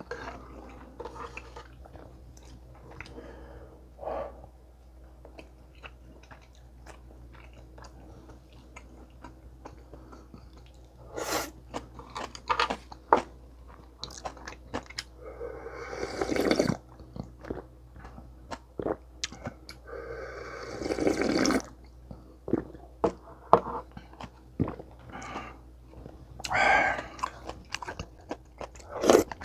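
Close-miked eating: chewing and crunching mouthfuls of sundae gukbap with kimchi and radish kimchi, with many small clicks and several louder crunching bites.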